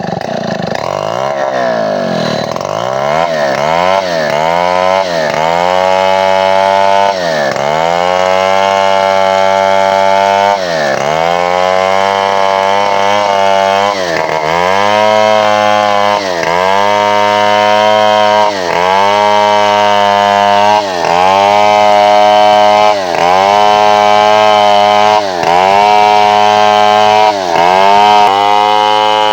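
Two-stroke chainsaw running at high revs, its pitch repeatedly dipping and climbing back: about once a second at first, then roughly every two seconds.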